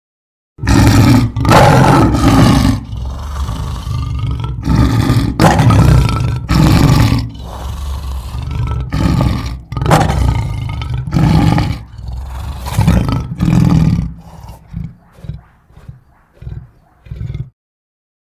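Creature sound effect for a walrus-dog monster: a run of loud, deep roars about once a second, trailing off into short, quieter grunts near the end.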